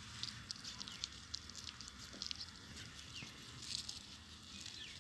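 Small puppies licking and mouthing a hand, making soft irregular wet clicks and smacks, with a few faint, short, falling squeaks.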